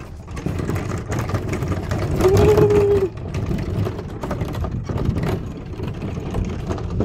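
Hand-pushed wooden cart rolling over gravelly dirt ground, its wheels making a steady rumble and rattle. About two seconds in comes a short held squeal lasting under a second, the loudest moment.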